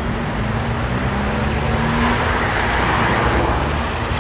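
A steady mechanical hum under a rushing noise that swells in the middle and eases off toward the end, like motor or road noise.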